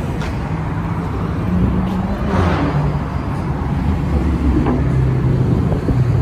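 City street traffic: the low, steady running of vehicle engines, with a car passing about two and a half seconds in.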